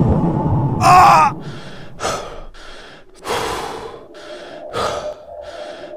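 A short squeaky cry about a second in, then a voice gasping: separate breathy gasps about every second and a half.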